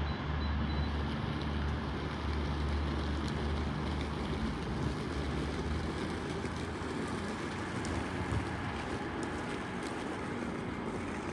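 Diesel engines of a CrossCountry Voyager multiple unit running under power as the train pulls away, a low drone that fades after about six seconds as it recedes.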